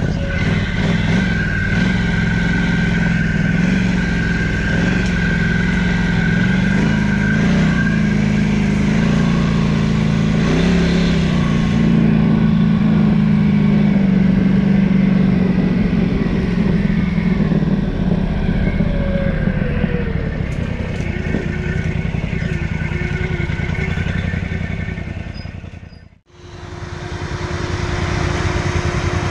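Quad (ATV) engine running while riding, its pitch rising and falling with the throttle. About 26 seconds in the sound drops out for a moment and comes back as a steadier engine note.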